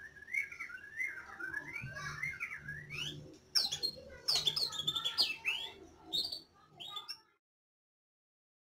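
White-rumped shama singing: a run of varied whistled warbles, then sharper, higher notes, cutting off about seven seconds in.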